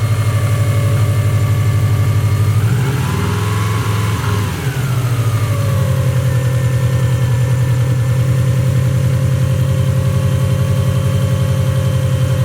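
Subaru WRX's turbocharged flat-four engine idling with a steady, pulsing note; about three to five seconds in the pitch wavers and the sound briefly dips before it settles back to a steady idle.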